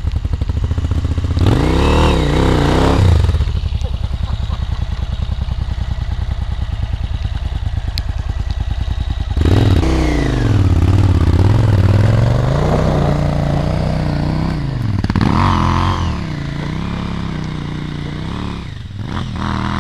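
Large adventure motorcycle's engine running at low revs with an even pulsing beat, revved briefly about a second and a half in, then revved up and down repeatedly from about halfway through as the bike is ridden up a steep muddy slope.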